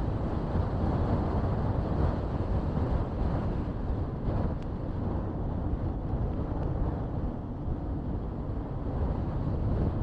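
Wind rushing over the microphone of a moving car, mixed with steady road and tyre noise.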